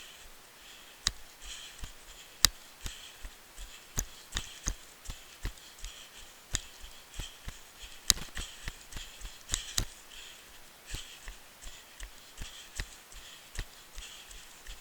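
Running footsteps on a dirt forest trail, thudding about three times a second, with sharp clicks and snaps among the footfalls and a high rustling hiss.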